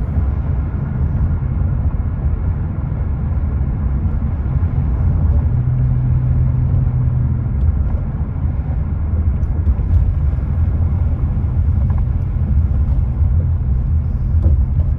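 Car driving on a paved road, heard from inside the cabin: a steady low rumble of engine and road noise. A low hum joins it for a couple of seconds about halfway through.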